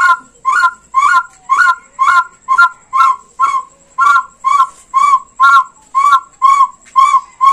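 Fired clay pre-Hispanic frog whistle blown in short, evenly spaced blasts, about two a second, each a brief warbling chirp imitating a frog's croak.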